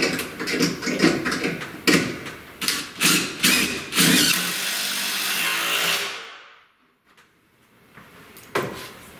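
Cordless DeWalt impact driver driving Torx wood screws through a plastic ceiling electrical box into the wooden joist. It runs in several short bursts, then in one longer steady run that winds down about six seconds in. A single knock comes near the end.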